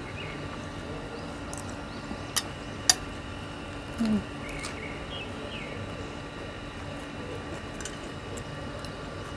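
Quiet eating: two sharp clicks or crunches a couple of seconds apart, then a brief low hum from the eater around the middle, over a steady faint background with a few faint chirps.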